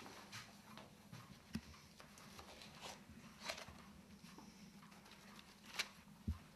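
Maps and papers being handled: faint, scattered rustles and soft clicks, with two sharper clicks near the end.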